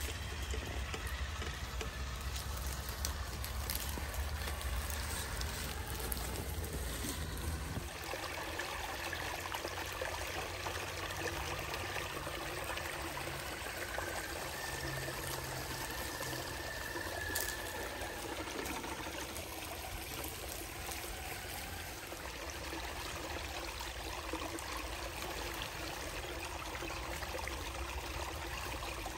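Shallow creek trickling and splashing over a small cascade of rocks, a steady running-water sound. A low rumble under it in the first several seconds stops abruptly about eight seconds in.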